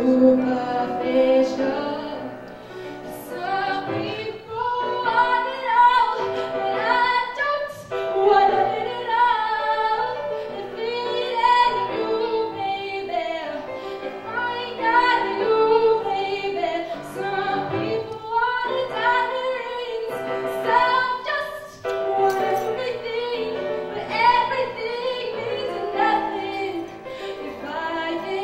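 A woman singing, accompanying herself on a grand piano.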